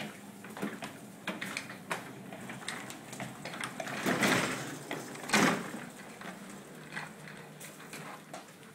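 Portable dishwasher being rolled across the floor on its casters, rattling with many small clicks and knocks, and two louder bumps about four and five and a half seconds in.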